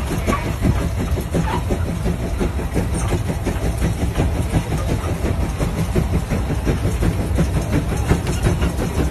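Case steam traction engine working hard under load pulling a gang plow, its exhaust giving a rapid, even beat over a heavy low rumble.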